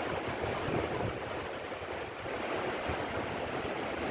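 Swat River in flood, its fast muddy water rushing steadily below the bridge.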